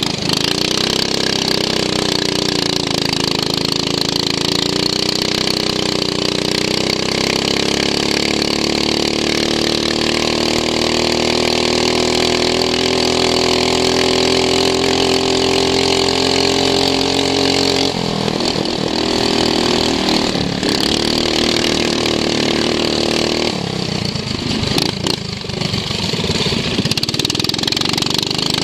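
A racing ride-on lawn mower's engine heard onboard, running at fairly steady revs with slow rises and falls. About eighteen seconds in it is eased off and runs unevenly, then comes back up to steady revs a few seconds later.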